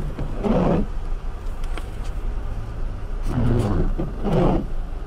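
Car windshield wipers sweeping across rain-wet glass over a steady engine hum heard from inside the cabin. There is one sweep about half a second in and a back-and-forth pair about three and a half seconds in.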